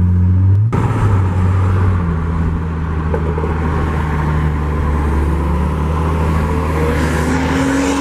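A car's engine accelerating hard, heard from inside the cabin. About a second in there is a gear shift, then the engine note climbs slowly through the next gear, with another shift near the end.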